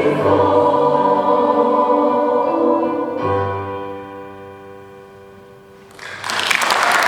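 A choir singing the final phrase, its last chord held and dying away over a few seconds. Applause breaks out suddenly about six seconds in.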